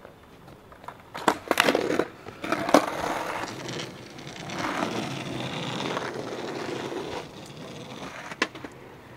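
Skateboard on rough asphalt: a cluster of sharp clacks from the board about a second in, then the wheels rolling steadily for several seconds, and one more clack near the end.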